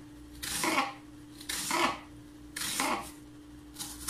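Kitchen knife slicing lengthwise through peeled ash gourd on a plastic cutting board. Four strokes about a second apart, each a short rasp through the flesh ending in a knock on the board.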